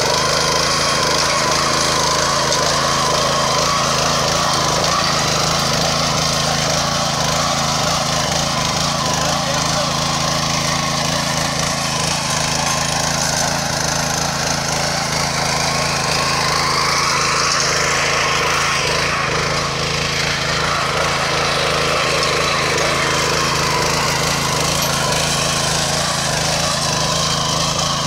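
A petrol-engined power weeder (mini rotary tiller) running steadily under load as its rotating tines dig through soil. Partway through, the sound briefly rises and falls in pitch.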